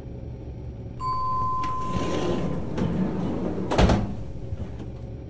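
Lift call button beeping once when pressed, over a low steady hum. A swelling rush of noise follows, then a heavy clunk about four seconds in, typical of a lift arriving.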